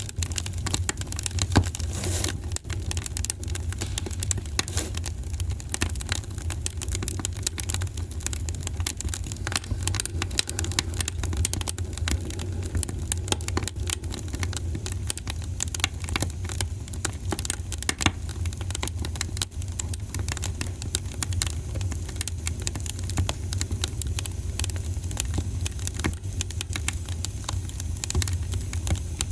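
Wood fire burning in a fireplace, crackling with dense, irregular pops and snaps over a steady low rumble.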